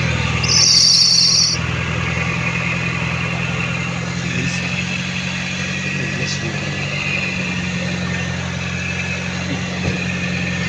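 Mitsubishi Lancer engine idling steadily just after starting. The crank-no-start fault was put down to a loose wiring contact at the battery. A loud high-pitched tone sounds for about a second near the start.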